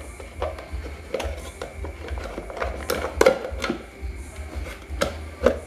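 Irregular light clicks and knocks of a stand fan motor's pressed-steel end plate being handled and fitted onto the motor housing, with a few sharper taps around the middle and near the end.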